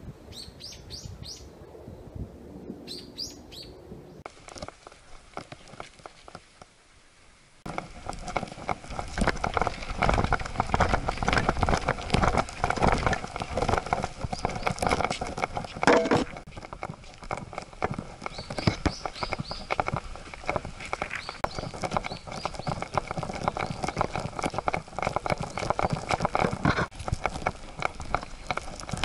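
A few bird chirps over quiet, then from about 8 seconds in a Siberian husky's quick footsteps on a leaf-and-stone forest trail, with its harness and leash chain rattling, heard close up from a camera strapped to its harness. More birds chirp now and then over the steps.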